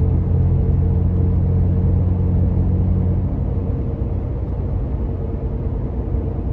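Tire and road noise heard inside the cab of a Toyota Tacoma cruising at about 55 mph on smooth, newly paved road: a constant low rumble with a steady hum above it from aggressive Goodyear Wrangler DuraTrac tires.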